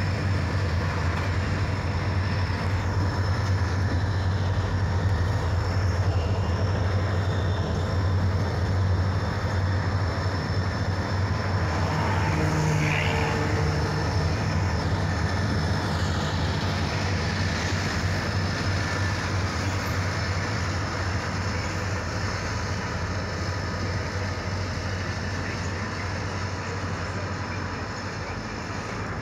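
Several diesel freight locomotives passing, their engines running with a steady low drone over the rolling noise of the train, slowly fading near the end.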